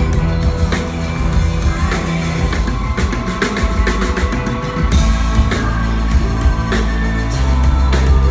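Live rock band playing a song through a club PA: a drum kit beat over heavy, loud bass notes, with electric guitar.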